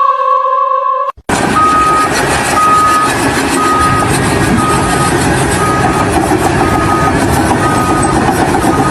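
A held musical note for about the first second, then an abrupt cut to a heavy vehicle's reversing alarm beeping about once a second over loud, steady engine noise.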